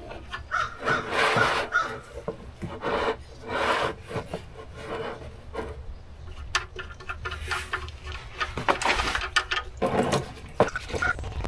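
Irregular rubbing and scraping as a gloved hand unscrews an engine oil pan's 14 mm drain plug. About ten seconds in, used engine oil starts pouring out into a plastic drain pan.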